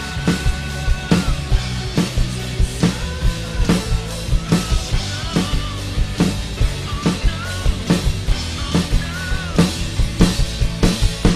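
Acoustic drum kit played live to a steady rock-pop beat, with kick, snare and cymbals hitting about twice a second. Underneath runs a drumless backing track of the song with bass and a melody line.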